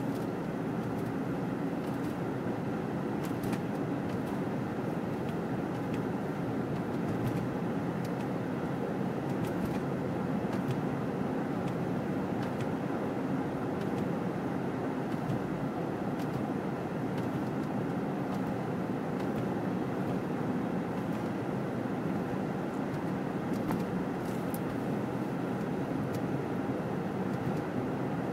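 Steady noise of a vehicle driving on a snow-covered road: tyre, wind and engine noise heard from inside the cab. A few faint ticks sound here and there.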